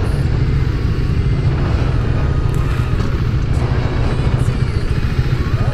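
KTM 390 Duke's single-cylinder engine idling steadily, a low, even pulsing.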